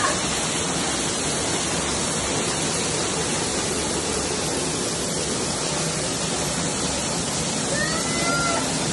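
Heavy downpour of rain mixed with small hail beating on stone paving, a dense steady hiss.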